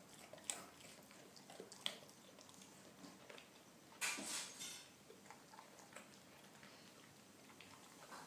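Dog chewing carrot pieces, with a few sharp crunches and a louder, longer burst of crunching about four seconds in, then quieter.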